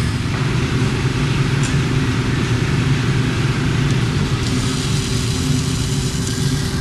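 Steady low mechanical drone of a running motor, even in level with a constant low hum.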